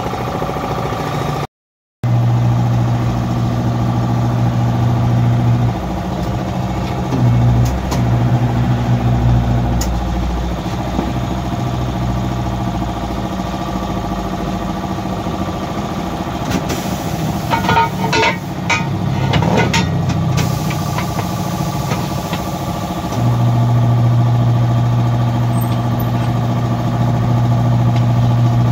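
An engine or motor running steadily with a low hum, its level shifting a few times. A cluster of sharp clicks and knocks comes about two-thirds of the way in, and the sound cuts out briefly near the start.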